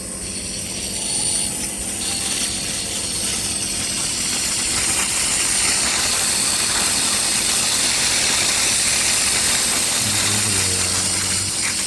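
Nebulizer compressor running steadily, with the hiss of the mist it delivers for a cough treatment.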